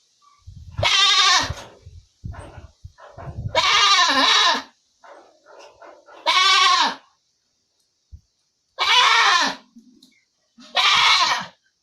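Goat bleating: five loud, wavering bleats, each about a second long and roughly two seconds apart, with softer grunting sounds in between.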